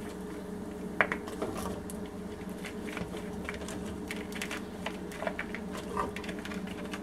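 Fresh green beans being tossed and stirred with chopped cashews in a nonstick frying pan: scattered crisp clicks and ticks of beans and utensil against the pan, with one sharp knock about a second in, over a steady low hum.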